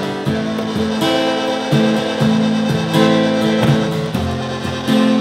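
Acoustic guitar played along with a homemade Arduino fidget-spinner synthesizer, whose held electronic notes step to a new pitch every half second to a second.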